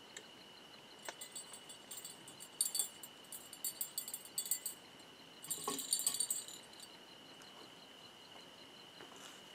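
Light metallic jingling and clinking in scattered bursts over several seconds, loudest about a third of the way in and again past the middle, over a steady high insect trill.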